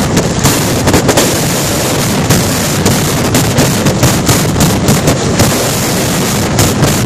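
Mascletà pyrotechnic barrage: loud, densely packed firecracker explosions going off so fast they merge into one continuous crackling din, with sharper bangs standing out here and there.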